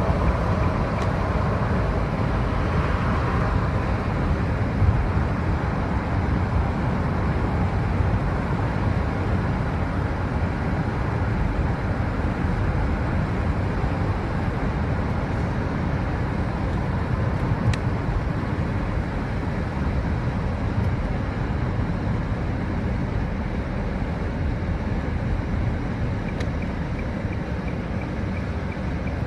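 Steady road and wind noise of a car being driven: a continuous low rumble of tyres and engine with a hiss of wind over it.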